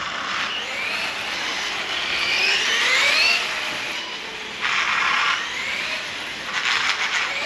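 Losi Promoto-MX RC motorcycle's brushless electric motor whining as the bike is driven, its pitch rising each time it accelerates out of a turn, the longest climb about two to three seconds in. Bursts of hiss come and go with it, near the start, about two thirds of the way through and near the end.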